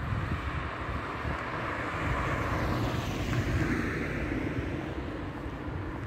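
A car passing on the road, its tyre and engine noise swelling to a peak midway and then fading, with wind buffeting the microphone.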